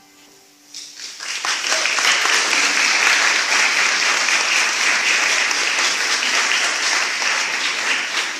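The last acoustic-guitar notes of the song dying away, then audience applause that starts about a second in and goes on steadily.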